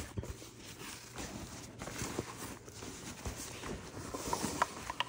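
Hands rummaging inside a fabric backpack: the cloth rustles, with small irregular knocks and clicks as the packed items are shifted around.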